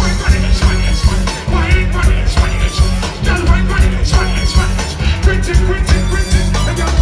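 Live reggae dancehall music from a band, with a heavy bass line and a steady drum beat.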